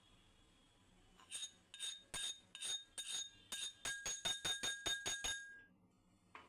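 A spoon clinking repeatedly against a small cup, about a dozen ringing strikes that come faster and faster, then stop about five seconds in.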